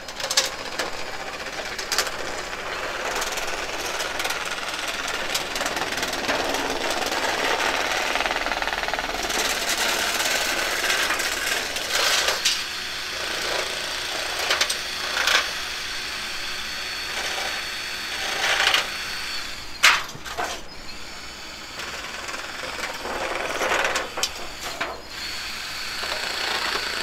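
Ryobi cordless saw cutting a thin metal sheet: a loud, rattling power-tool buzz as the blade chatters through the metal, easing off briefly a few times as the sheet is turned.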